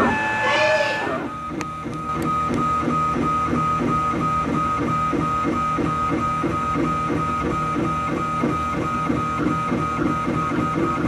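CubePro Duo 3D printer's stepper motors whining as the print head traces the first outline of a print. The pitch glides in the first second or so, then settles into an even pulsing about three times a second over a steady tone.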